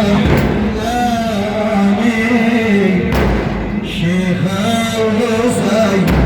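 A man's voice chanting an Arabic religious recitation in long, ornamented, wavering melodic lines, with two heavy thumps about three seconds apart.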